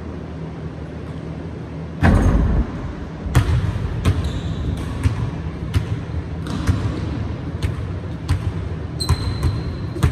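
Basketball bouncing on a hardwood gym floor: a loud thud about two seconds in, then irregular bounces, roughly one or two a second, with two brief high squeaks among them. A steady low hum runs underneath.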